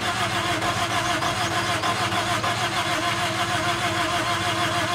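Toyota Corolla GLi's freshly fitted replacement engine running steadily, with a fast, even pulse and a slightly wavering tone.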